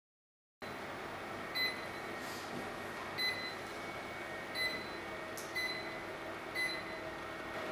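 Short high electronic beeps repeating roughly every one and a half seconds over a steady hiss, starting about half a second in.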